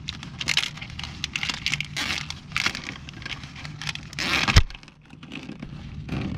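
Rustling, crackling and scraping of a gloved hand working corrugated plastic wire loom and wiring against the underside of a truck's floor pan, with one sharper knock about two-thirds of the way in.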